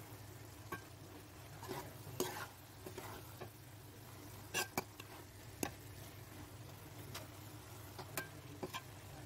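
Metal ladle stirring cabbage curry in a large steel pot: soft, scattered scrapes and clinks of the ladle against the pot.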